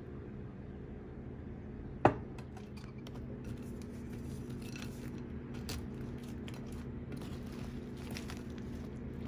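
A sharp knock about two seconds in, then light clicks and scrapes from a silicone spatula starting to stir chocolate-coated cookie pieces and almonds in a glass bowl, over a steady low hum.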